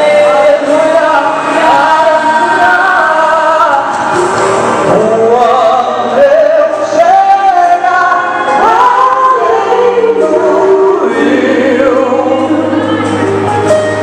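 Large mixed youth choir singing a gospel hymn together.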